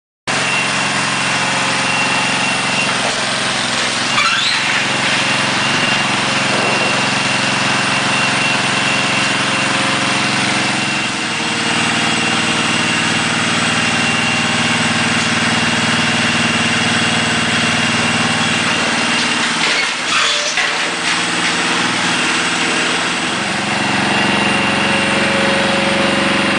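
A machine's engine or motor running steadily, with a thin high whine over it and a couple of brief knocks about four seconds and twenty seconds in.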